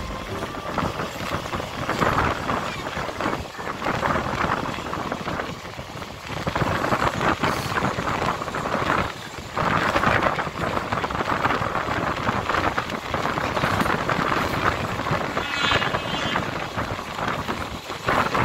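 Moving passenger train running along the track, its wheels and coaches clattering, heard from an open coach door with rushing wind noise that swells and fades.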